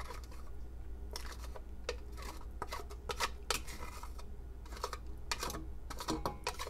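Wooden spoon scraping and tapping against a small bowl and a stainless steel saucepan as honey is scraped in, a string of light, irregular clicks and scrapes.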